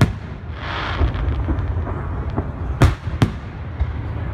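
Fireworks shells bursting overhead: one sharp bang right at the start, then two more about a third of a second apart near the end. A short hiss comes about half a second in, with a steady low rumble under it all.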